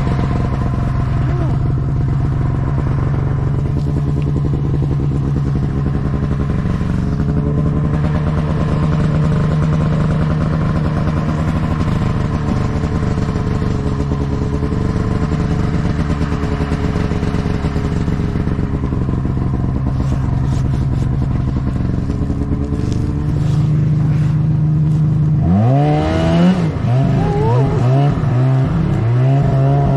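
Snowmobile engine running at a steady speed. About 25 seconds in, the revs climb and drop quickly several times as the throttle is worked.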